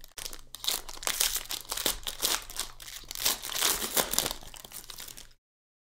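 Foil wrapper of a trading-card pack being torn open and crinkled by gloved hands: a dense run of sharp crackles that cuts off suddenly near the end.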